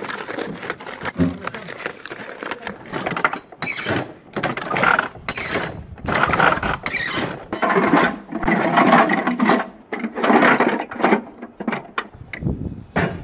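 Paper packing crinkling and rustling as cannon rounds are unwrapped and handled by hand, in irregular bursts with sharp little crackles.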